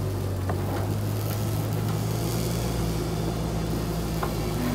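Truck engine running steadily, a constant low hum, with two faint clicks, one about half a second in and one near the end.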